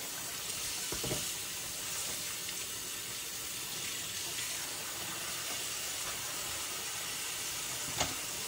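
Kitchen tap running steadily into a sink as raw chicken is rinsed under it, with a short knock near the end.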